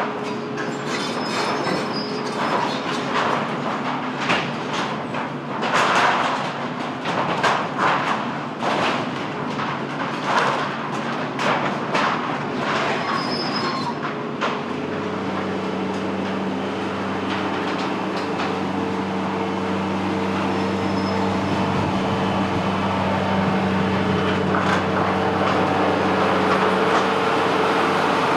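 Irregular metallic clanks and scrapes with brief high squeals, then a steady machine drone that slowly grows louder over the second half.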